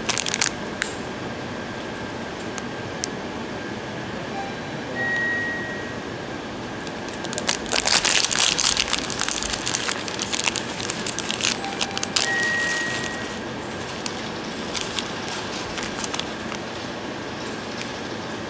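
Plastic ice-cream wrapper crinkling as it is handled and torn open. A dense burst of crackling comes a little before the middle, with lighter crinkles after it, over a steady background hiss.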